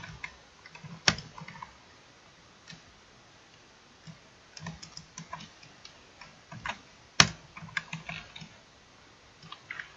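Irregular computer keyboard keystrokes and mouse clicks, with two sharper, louder clicks about a second in and about seven seconds in.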